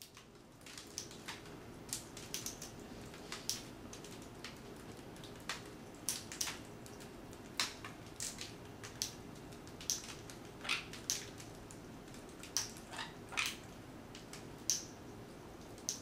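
Parrots crunching and cracking food in their beaks: sharp, irregular crunches about one or two a second over a steady background hum.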